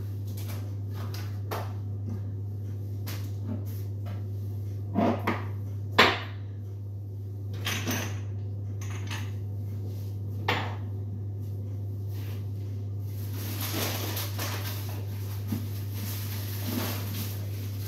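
Tins and jars being taken from a kitchen wall cupboard and set down on a stone worktop: scattered knocks and clinks, the loudest about six seconds in, then a few seconds of rustling with a couple more knocks near the end. A steady low hum runs underneath.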